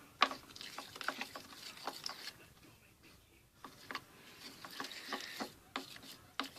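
Homemade hand-soap slime being stirred in its container: irregular clicks, taps and soft squishing scrapes of the utensil, which pause for about a second partway through.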